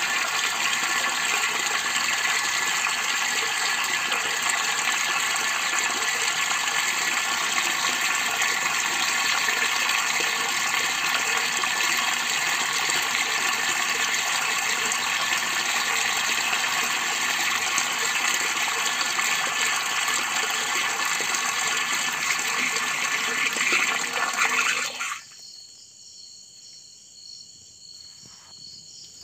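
Water jetting from an inlet pipe into a nearly full plastic water drum, a steady splashing gush. About 25 seconds in it cuts off suddenly, as the automatic float valve shuts the inflow.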